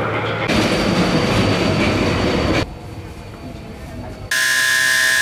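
Metro train noise inside the carriage: a loud rushing rumble that stops abruptly about two and a half seconds in, a quieter stretch, then a loud steady buzzer tone near the end.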